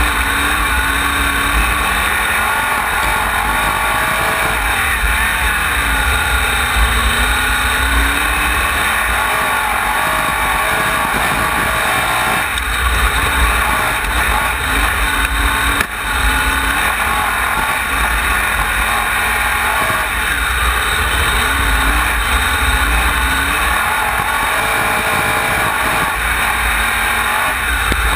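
Onboard sound of a wingless sprint car's engine at racing speed on a dirt oval, its pitch rising and falling over and over as the driver gets on and off the throttle through the turns, over a heavy low rumble.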